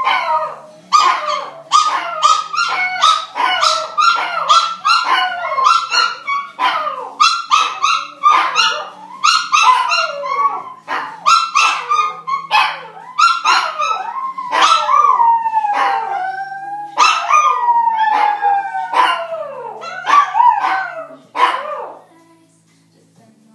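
A chorus of several canines howling and yipping together: many overlapping quick yips and high wavering howls, with a few long falling howls in the second half, dying away about two seconds before the end.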